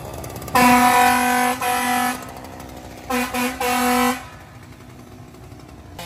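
Grover 21-inch Stutter Tone air horn blasting twice: a first blast of about a second and a half with one brief break, then a shorter stuttering blast cut off twice before it ends.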